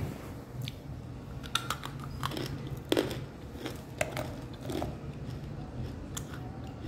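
Biting and chewing dry chunks of edible clay: irregular sharp crunches, the loudest about three seconds in.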